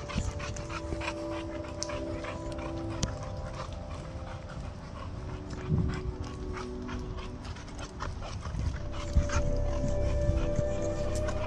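A young Renascence Bulldogge panting close by, with the scuff and crunch of footsteps on a dirt trail, over soft background music with long held notes.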